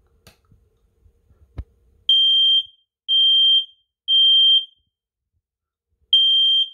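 Smoke detector's built-in sounder in its test mode, set off with the test button: a faint click, then three loud high beeps about a second apart, a pause, and a fourth beep starting the next round. This is the temporal-three pattern of a fire alarm.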